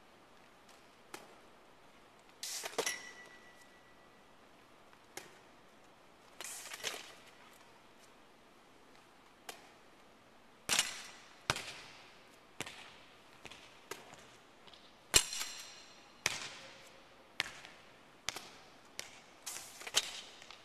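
A volleyball being struck again and again, each sharp slap echoing in a large gym. The hits come a few seconds apart at first, then about one a second from the middle on, and one hit near the start rings briefly.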